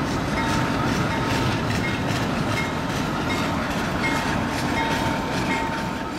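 Freight train of autorack cars rolling past: steady rumble of steel wheels on rail, with repeated clicks as the wheels cross rail joints.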